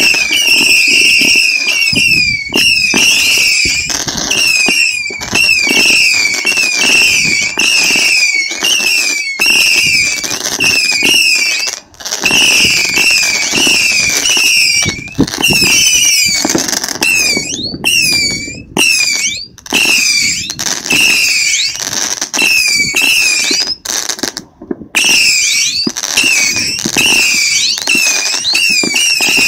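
Two Saturn Missile 300-shot batteries firing together: a continuous stream of small whistling rockets, several high whistles a second overlapping one another, over crackling pops. The stream thins briefly twice.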